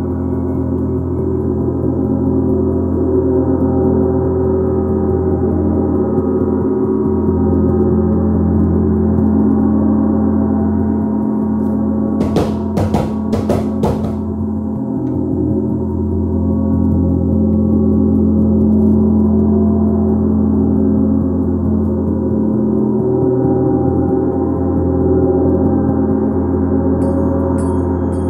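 Gong ringing in a dense, sustained wash of overlapping tones that swells and ebbs slowly. About halfway through comes a quick run of four or five sharp hits.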